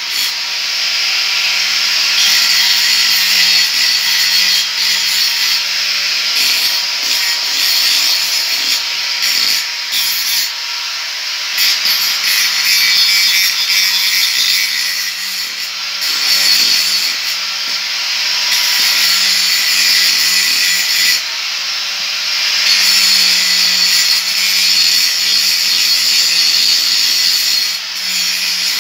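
Electric angle grinder running with its disc cutting into a metal plate for a hoe blade: a steady motor hum under a loud, continuous grinding hiss that eases and picks up again several times as the disc is pressed into the steel.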